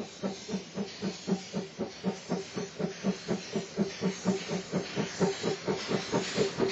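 JNR class C11 steam tank locomotive working hard under steam, its exhaust beating steadily about four times a second over a constant hiss of steam from the open cylinder drain cocks.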